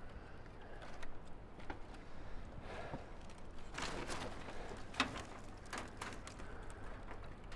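Scattered knocks, clinks and rustling of junk and debris being handled or stepped on, with one sharper knock about five seconds in.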